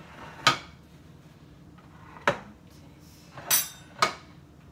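Kitchen dishes and containers knocking against the countertop as they are handled: four short, sharp clacks, the third a little longer and rattlier.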